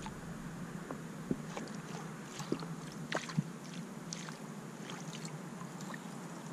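Small rowboat on rippling water: faint water lapping at the hull, with scattered light knocks and ticks, the sharpest about three seconds in.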